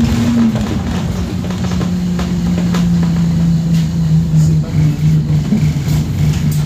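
Interior sound of an Alexander Dennis Enviro200 Dart single-deck bus's diesel engine and drivetrain. The engine note drops about half a second in, then slowly falls as the bus slows with its 'Stopping' sign lit. Light rattles from the bus body come and go throughout.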